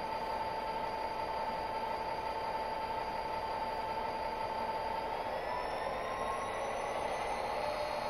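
Sound-decoder recording of an EMD diesel prime mover from a model SD40-2 locomotive, running steadily and then rising in pitch about five seconds in as the engine is revved up to the next notch.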